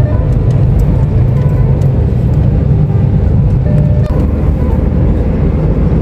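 Steady road rumble inside a moving car's cabin: tyres and engine running at highway speed.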